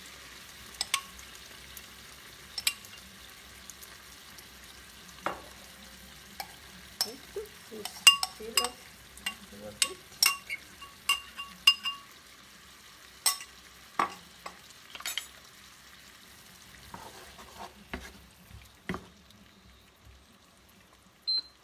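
Pasta being stirred in a pan of sizzling artichoke and cream sauce: irregular sharp clinks of the utensil against the pan over a soft sizzle that quietens about halfway through.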